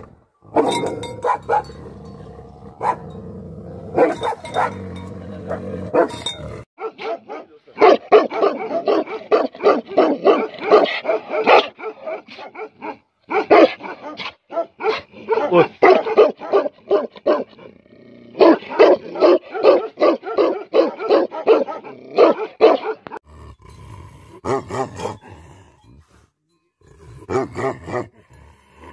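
Tibetan mastiffs barking angrily: long volleys of deep, rapid barks, several a second, broken by short pauses. Sparser single barks come in the first few seconds and again near the end.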